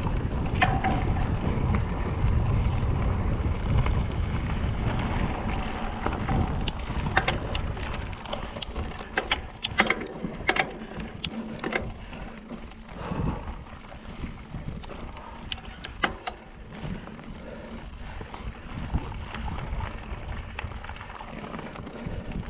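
Wind buffeting the microphone as a low rumble, easing after about six seconds. A run of sharp clicks and rattles comes in the middle, then a quieter stretch of noise.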